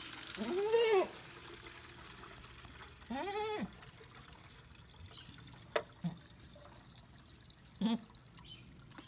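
A goat bleats twice, each call rising and then falling in pitch, over the soft trickle of water being poured for the goats to drink. A few short knocks come later on.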